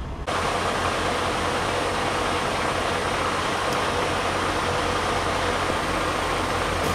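Freightliner Cascadia semi tractor's diesel engine running steadily with a constant hiss over it. The sound comes in suddenly just after the start.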